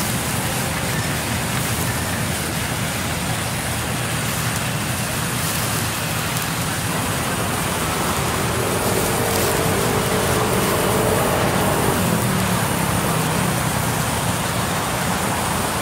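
Large bandsaw mill running with a steady hum and hiss. About eight or nine seconds in, a higher whine joins for a few seconds as the log is pushed into the blade and cut.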